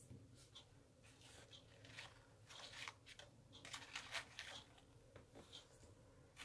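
Faint, irregular scratches and small clicks of fingers picking through a plastic compartment box of bead and bracelet supplies, busiest around the middle.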